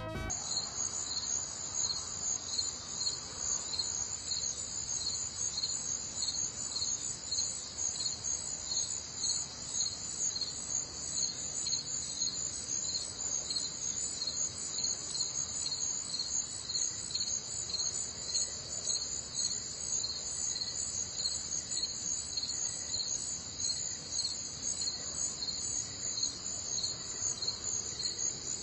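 A steady, high-pitched chorus of chirping insects with a fast, even pulse.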